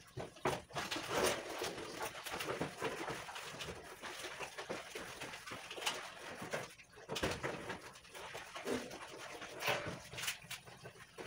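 A cloth rubbing and scrubbing over a gas stove, in irregular strokes, with scattered sharp knocks and clatters as the oven door is opened and handled.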